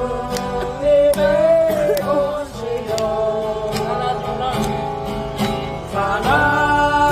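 Acoustic guitar strummed in a steady rhythm while a man sings a slow gospel praise song, holding long notes.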